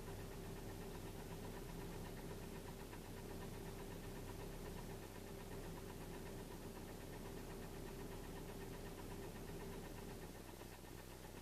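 Car engine running steadily with a fast, regular knock, which the owner puts down to scored cylinder walls.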